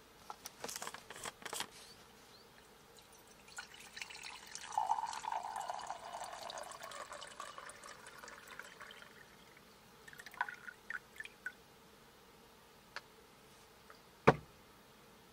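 Water poured into a small stainless steel gooseneck pot, splashing and trickling for about five seconds as it fills. Light clinks come before and after the pour, and a single sharp knock sounds near the end.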